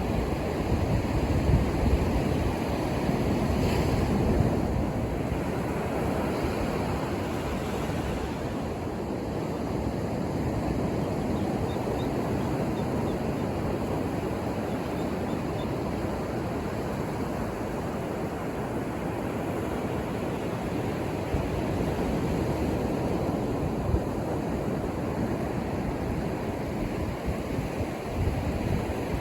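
Ocean surf breaking and washing on a beach as a continuous rushing hiss, swelling over the first few seconds and then holding steady, with some wind on the microphone.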